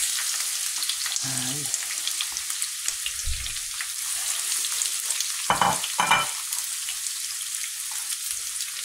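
Sliced onions sizzling in hot olive oil in a frying pan, a steady hiss, with two short knocks a little past halfway.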